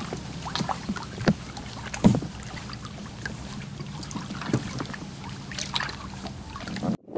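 A boat motor running steadily at low speed, a low even hum, with a few light knocks and splashes over the lapping of the water; the sound cuts off abruptly near the end.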